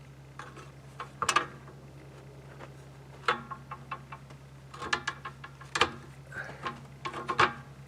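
Steel split-rim lock ring clanking against the rim as it is worked into place: about six irregular sharp metal knocks, each ringing briefly, the loudest about a second in. A steady low hum runs underneath.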